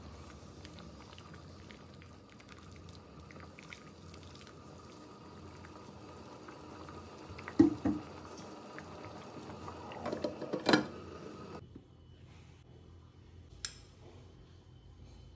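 Thick mung bean sweet soup simmering and being stirred in a pot, with a steady bubbling and small liquid pops. A few loud sharp knocks of the ladle against the pot come about halfway through and again a few seconds later, after which the sound drops to a quieter background.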